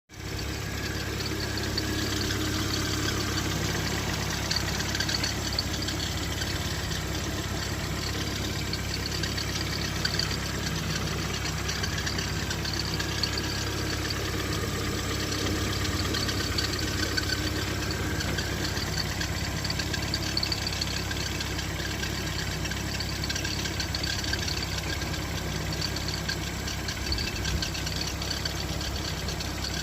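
A 143 hp engine idling steadily, with a high squeak or whistle wavering over it, the noise the owner hears at start-up.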